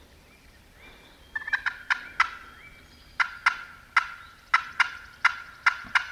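Wild turkey calling: a quick string of sharp, clipped notes a little over a second in, then after a short pause a longer run of about eight sharp notes, roughly three a second.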